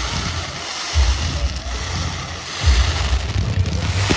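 Fireworks display: deep booming rumbles that start suddenly about a second in and again near three seconds, over a steady noisy background.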